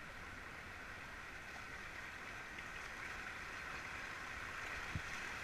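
Shallow mountain stream rushing over stones around a river raft: a steady hiss of moving water. A single short low knock about five seconds in.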